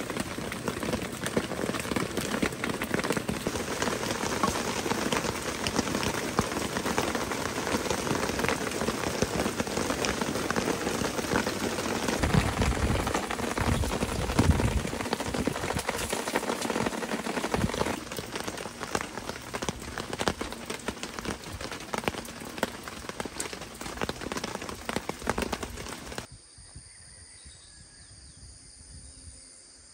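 Steady rain falling, full of small individual drop hits, with a low rumble underneath for a few seconds around the middle. Near the end the rain cuts off abruptly, leaving quieter, steady high trilling of insects.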